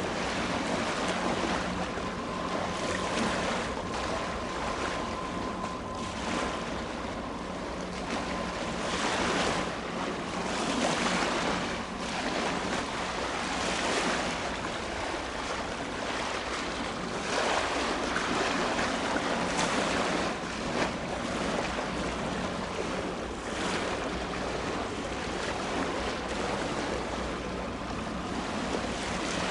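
Wind buffeting the microphone in irregular gusts over waterside noise, with a steady low engine hum from a vessel underneath.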